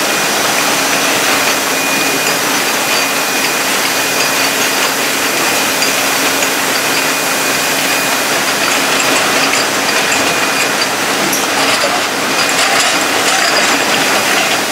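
Bottling line running: steady dense machinery noise from conveyors and drive motors, with a steady low hum and a thin high whine. Light clicks and rattles come in about nine seconds in.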